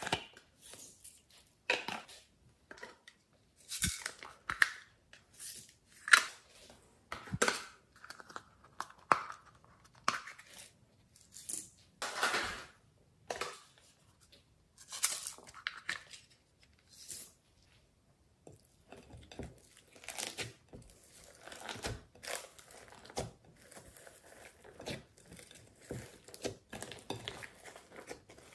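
Hands working slime with clay and glitter: a run of separate sticky, crackling handling sounds, turning about two-thirds in into a denser, continuous crackle as the slime is kneaded and mixed in a glass bowl.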